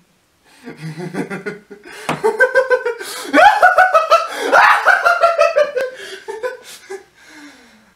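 A man laughing: a low chuckle that builds about two seconds in to loud, rapid ha-ha bursts, then trails off near the end.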